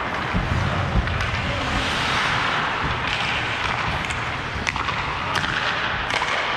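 Hockey skate blades scraping and carving the ice in strides, with several sharp clacks of sticks and puck in the second half.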